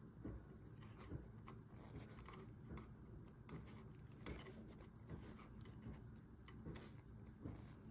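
Faint, irregular light clicks and rubbing of wooden knitting needles against a cable needle and yarn while three held stitches are knitted off the cable needle to complete a six-stitch cable cross.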